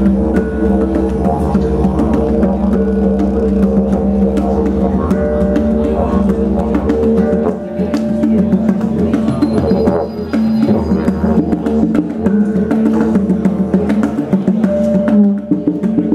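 Didgeridoo playing a steady drone under djembe hand drumming, a live ethnic-percussion groove.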